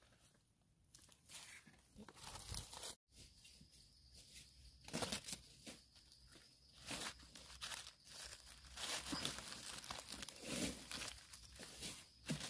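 Dry fallen leaves crackling and rustling as gloved hands brush the leaf litter aside and dig around mushrooms in dry soil; irregular, faint handling noise that breaks off briefly about three seconds in.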